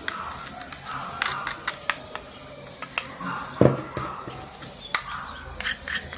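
Irregular sharp clicks and taps of small plastic and metal parts being handled during a phone teardown, with one louder knock about three and a half seconds in.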